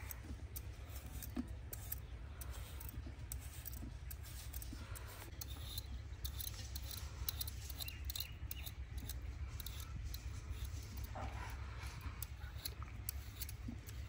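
Potatoes being peeled with a blade: a series of short, light scraping strokes against the skin, over a steady low hum.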